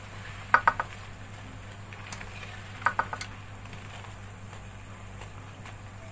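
Gram-flour fritters sizzling in hot oil in a wok while a metal wire skimmer scoops them out, clinking and scraping against the pan in two short clusters, about half a second and three seconds in.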